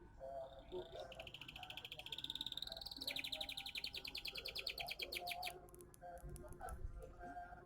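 A caged songbird singing two rapid high trills, the first climbing in pitch and the second held level, then stopping; the bird is in moult, which the keeper says keeps it from singing freely.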